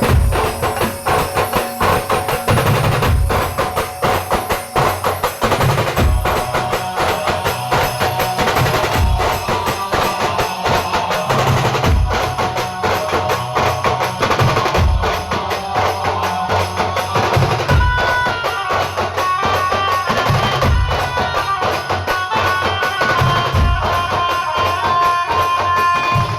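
Band music driven by dense, fast drumming. About two-thirds of the way in, a sustained melody line enters over the drums.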